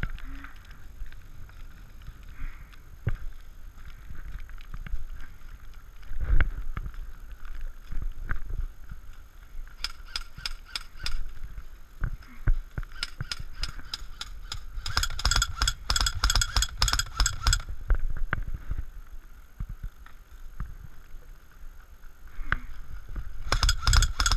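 Airsoft guns firing in bursts of rapid, evenly spaced shots: a short burst about ten seconds in, another around thirteen seconds, a longer one a few seconds later and another starting near the end, with scattered knocks of movement in between.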